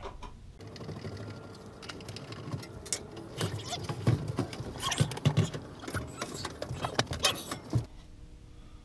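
Built-in RV microwave being pulled out of its wooden cabinet opening: scraping and rattling with a string of sharp knocks and clunks that grow busier in the second half and stop about eight seconds in.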